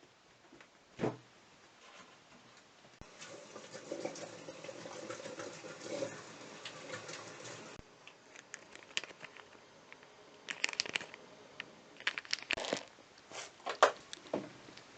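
A cat at its bowls eating dry food: irregular crunching and clicking of kibble, with a stretch of steady rustling crackle in between and one soft thump about a second in.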